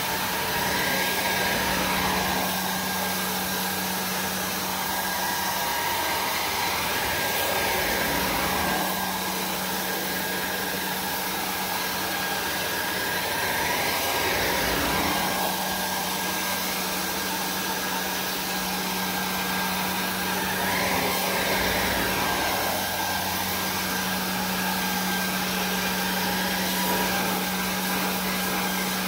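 Carpet extraction machine's vacuum motor running steadily with a constant hum. About every six or seven seconds the sound rises and falls in a swelling whoosh as the wand is stroked across the wet carpet, pulling up solution and urine-soiled water.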